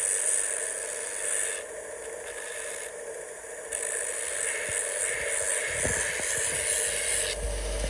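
Belt grinder running, its abrasive belt on the contact wheel sanding a knife's wenge wood handle; the grinding noise drops away twice for under a second.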